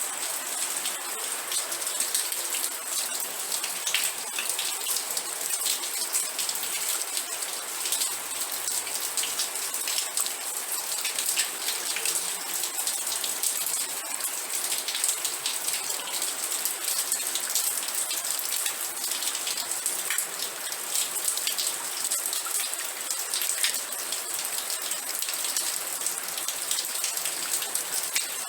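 Steady rain falling, a dense hiss of many fine drop ticks, with a bright high edge.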